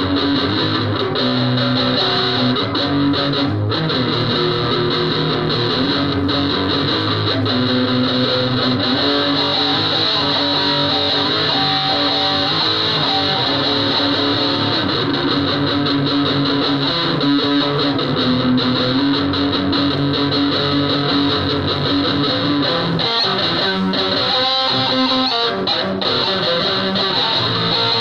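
Electric guitar played through distortion: continuous picking and strumming with sustained, fuzzy notes, no pauses.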